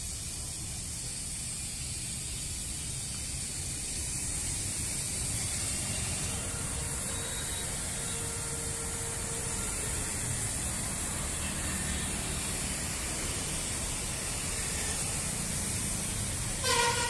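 Steady low street rumble and hiss, then a vehicle horn toots briefly near the end.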